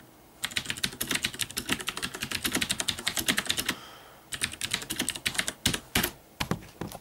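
Fast typing on a mechanical keyboard with Cherry MX Blue switches: a rapid run of sharp clicks, about eight to ten a second, from keys typed hard and bottomed out, pausing briefly a little past the middle.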